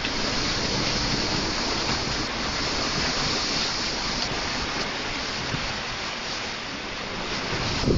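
Storm-force wind of about 80 mph rushing steadily and buffeting the phone's microphone.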